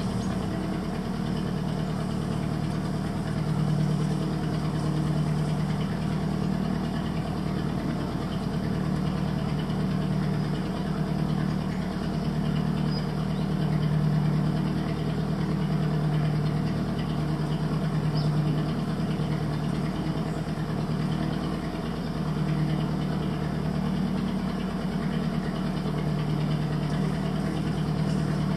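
A small boat's engine running steadily at low speed, a low drone that swells slightly now and then.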